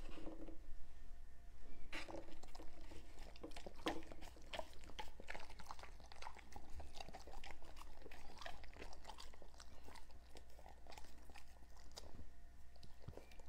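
Two dogs eating green peas off a tabletop: a run of small irregular chewing and licking clicks, starting about two seconds in and thinning out near the end.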